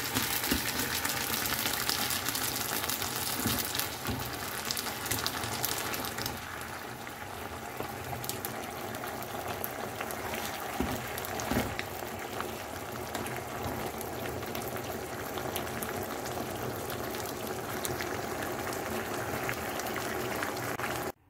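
A stir-fry of green beans, chicken and carrot sizzling and bubbling in its sauce in a wok, stirred with a spatula for the first few seconds. After about six seconds only the steady, slightly quieter simmering and crackling go on.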